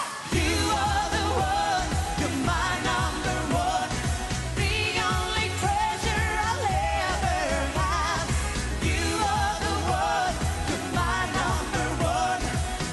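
Greek-flavoured dance-pop song: a woman singing an ornamented, wavering melody over a steady driving beat.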